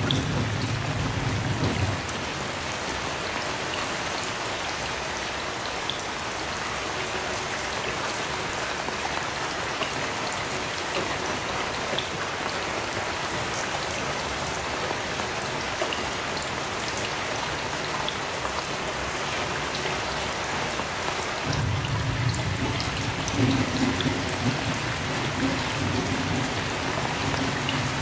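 Heavy rain falling steadily. A low rumble of thunder dies away about two seconds in, and another rolls in about three-quarters of the way through and continues to the end.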